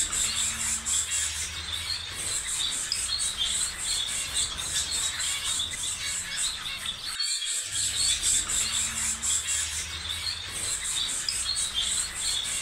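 Outdoor ambience of small birds chirping over a steady, high buzz of insects. There is a brief dropout about seven seconds in, and then the same stretch of the recording repeats as a loop.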